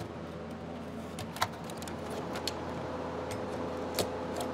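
Scattered light clicks and ticks of a small hobby knife cutting window openings into a model's thin wooden sheathing, two of them sharper, about a second and a half in and near the end. A steady low hum runs underneath.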